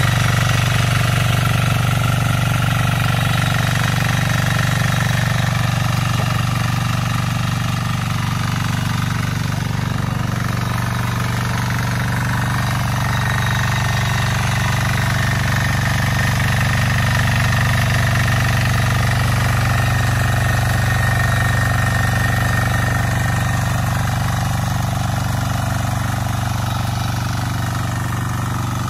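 Trâu Vàng mini walk-behind tiller's 173F single-cylinder diesel engine running steadily under load while tilling wet paddy mud, getting a little quieter near the end.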